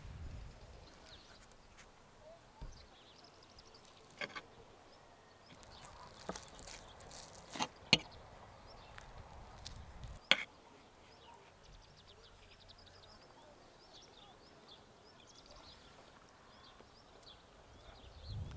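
Quiet outdoor ambience with small birds chirping, broken by a few sharp clicks of a metal fork and spoon against a plate and jar, the loudest about eight and ten seconds in.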